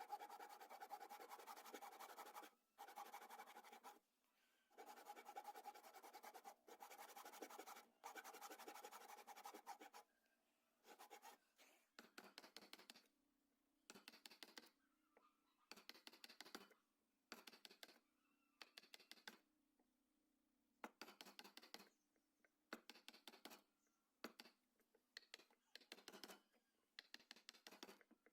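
A hand tool scraping wood: long spells of fast scraping for the first ten seconds, then short strokes of about a second each, repeated every second or two.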